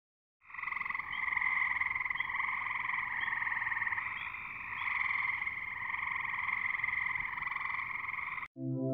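A chorus of frogs trilling steadily, with a short higher call repeating about once a second through the first half. It cuts off suddenly near the end.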